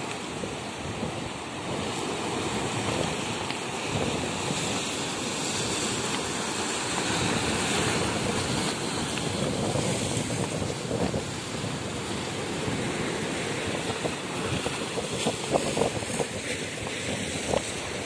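Sea waves washing in a steady rush onto a rocky, sandy shore. Wind buffets the microphone, in stronger gusts near the end.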